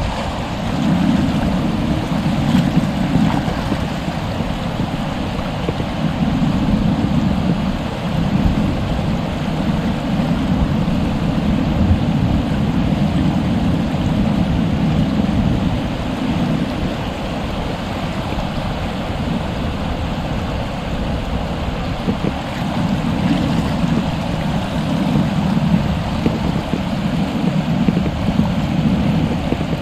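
Stream water flowing: a steady rushing noise that swells and eases slightly every few seconds.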